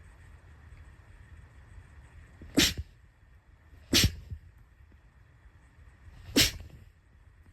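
Three short, sharp sneezes: the second about a second and a half after the first, the third more than two seconds later.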